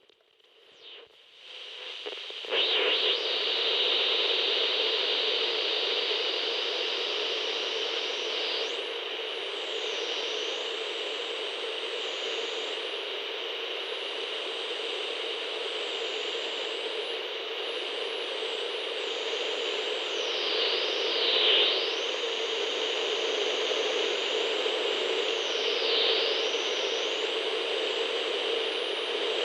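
CB radio static: a steady, band-limited hiss that swells up over the first couple of seconds and then holds. Thin whistling tones glide up and down faintly above it.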